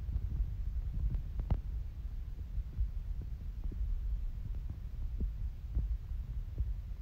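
Low rumble with scattered soft knocks and thumps from handling a handheld camera's microphone as it is moved over the display.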